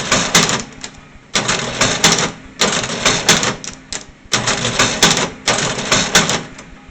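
National Cash Register 6000 running as items are rung up: a loud mechanical clatter of about a second for each ring, repeating about every second and a half, five times. Each ring is a little loud.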